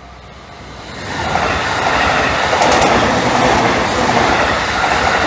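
Takasaki Line train passing over a level crossing: the noise swells sharply about a second in to a loud, steady rush with wheels clacking over the rails. The crossing's warning bell rings faintly at the start.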